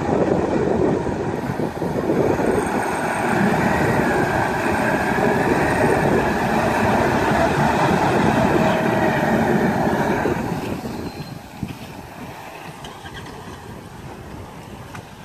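Twin outboard motors running hard and churning up prop wash behind a boat being hauled onto its trailer, mixed with the engine of the Land Rover towing it. The loud noise drops away about ten seconds in.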